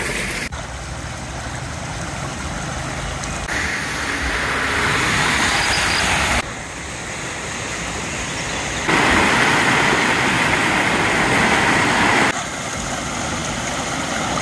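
Floodwater rushing over a street, a steady noise of running water that jumps in level at several abrupt cuts between short shots.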